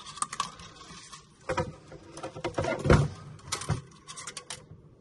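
Plastic filament spool being handled and set onto the rollers of a Creality Filament Dryer Box 2.0: a string of light plastic clicks and rattles, with the loudest knock about three seconds in, dying away near the end.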